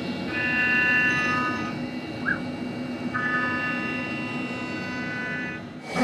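CNC router spindle driving an end mill through the edge of a 10 mm aluminium plate. A high-pitched cutting whine of several tones sounds for about a second and a half near the start and again for a couple of seconds from about three seconds in, over a steady machine noise. A brief rising-and-falling chirp comes in between.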